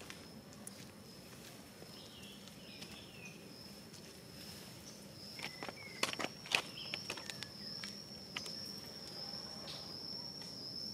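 A steady, high-pitched insect trill, like a cricket or cicada, with scattered clicks and scuffs that bunch together about halfway through.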